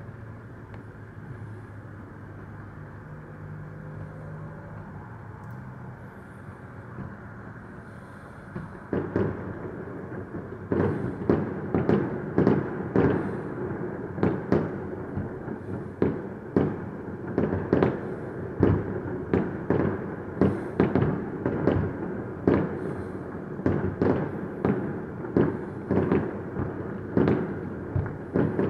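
Fireworks display: a low steady hum for the first several seconds, then from about nine seconds in a quick, continuous run of bangs, several a second.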